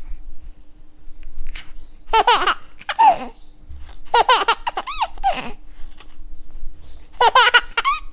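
Baby laughing in about five short bursts of high-pitched giggles, with pauses between them.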